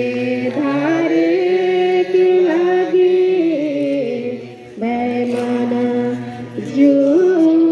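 Singing of a Sadri-language Stations of the Cross hymn, long held notes stepping up and down in a slow chant-like melody, with a short pause for breath about four seconds in.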